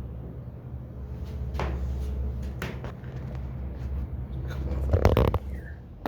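Fasco Gulf Stream ceiling fan running on high speed, a steady low hum, with a handful of sharp knocks and clicks on top, the loudest cluster about five seconds in.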